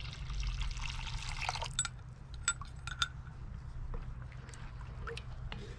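Chicken stock poured from a glass measuring cup into gravy in a cast-iron Dutch oven, a steady splashing hiss for about a second and a half. Then a wooden spoon stirs the gravy, with a few light clinks.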